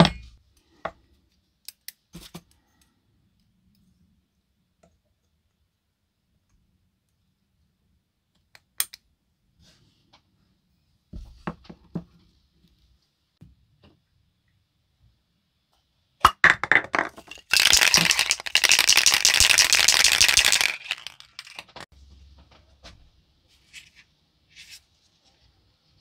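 Aerosol spray paint can, a short rattle and then one hiss of about three seconds, as grey primer is sprayed onto a bare-metal diecast car baseplate. A few light metal clicks, like hemostat forceps being clamped and set down, come earlier.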